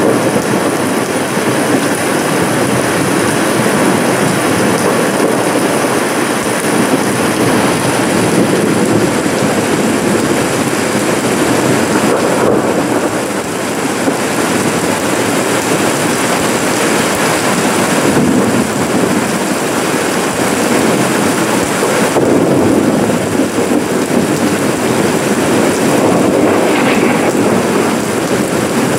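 Steady rain falling on a wet lawn and muddy ground: a dense, even patter with no single drops standing out.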